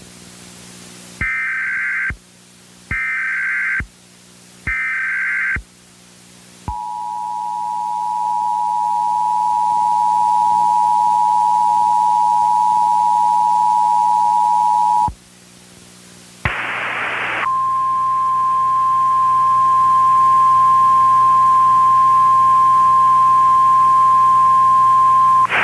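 Emergency Alert System tones: three short bursts of SAME header data, each about a second long, then the two-tone EAS attention signal held steady for about eight seconds. After a pause there is a brief burst of static, then a single steady tone in the style of the NOAA Weather Radio alert, held for about eight seconds.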